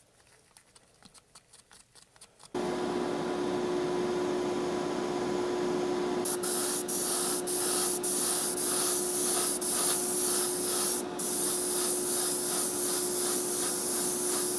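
Light ticks of a stir stick in a plastic cup of airbrush paint, then a small motor starts humming steadily about two and a half seconds in. From about six seconds in, an airbrush sprays paint with a steady hiss, first in a few short pulses, then in longer passes with a brief break.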